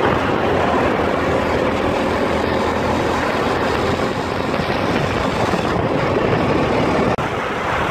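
Honda CD70 motorcycle under way, its small single-cylinder four-stroke engine running steadily as it rides along the road, mixed with the steady rush of riding.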